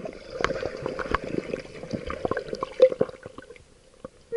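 Water gurgling and bubbling, with scattered clicks over a steady hum. It drops away to near quiet shortly before the end.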